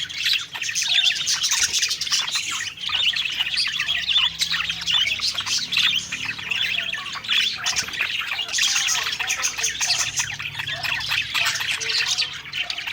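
Budgerigars (parakeets) chattering and warbling continuously, a dense mix of rapid chirps and occasional squawks from several birds.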